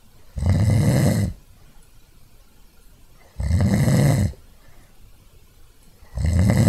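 A person snoring: three loud snores about three seconds apart, each lasting about a second.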